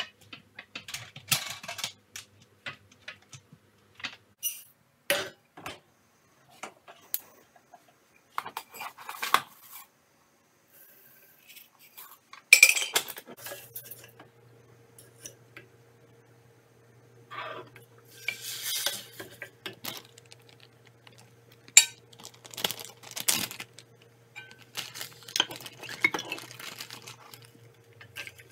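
Pots and utensils clattering and clinking: a crock pot handled, then a wooden spoon scraping and knocking in a stainless saucepan as food is stirred and poured in, with a few sharp clinks standing out. From about halfway through, a steady low hum runs underneath.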